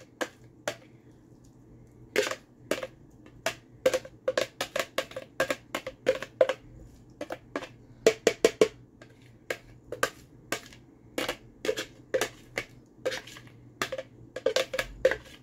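A utensil scraping and tapping sauce out of a hard plastic container into a pot: irregular sharp clicks and knocks, several a second.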